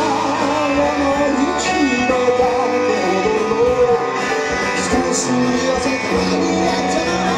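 Live band music: an instrumental passage between sung verses, with guitar prominent.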